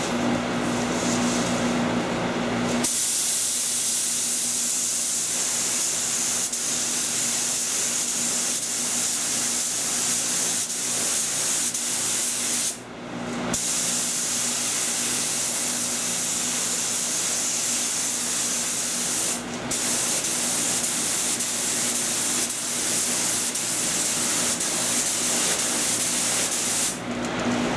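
Paint spray gun spraying clear coat: a steady, loud hiss of atomising air that starts about three seconds in, breaks off twice briefly as the trigger is let go between passes, and stops near the end.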